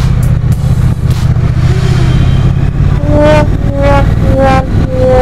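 Triumph Street Cup's 900 cc parallel-twin engine running as the motorcycle rides through traffic. About three seconds in, four pitched notes begin, each a little lower than the one before, the last one held.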